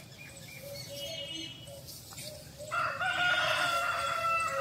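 A rooster crowing: one long, steady call lasting about two seconds, starting a little under three seconds in, with a fainter call about a second in.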